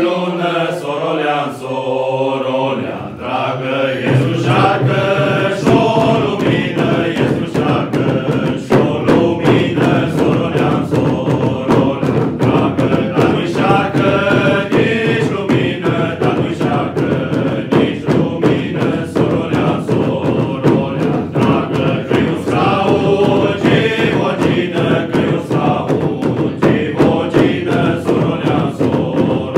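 Men's group singing a Romanian Christmas carol in unison. From about four seconds in, a fast, steady beat on dube (skin-headed frame drums struck with sticks) joins the singing and continues under it.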